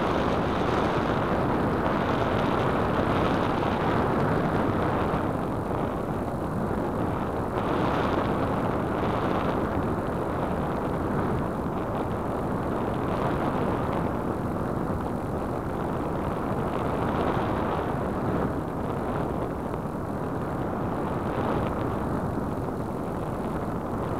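Airflow rushing over the small onboard keychain camera's microphone on a Radian RC glider in flight. It is a steady windy roar that swells a little every few seconds, with no clear motor tone.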